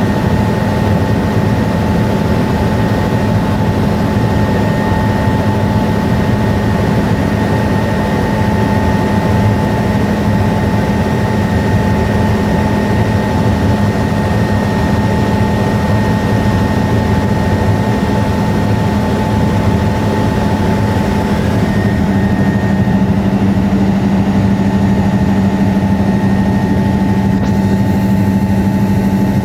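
Helicopter in flight: a loud, steady drone of engine and rotor with a constant whine.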